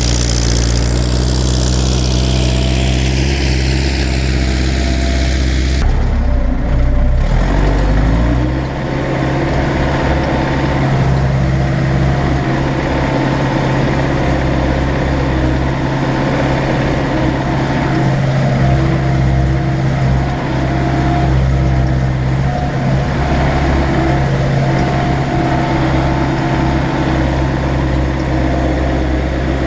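MTZ-82 tractor's four-cylinder diesel engine running steadily while pulling a plough. About six seconds in the sound changes abruptly; from there on a steady low engine note holds.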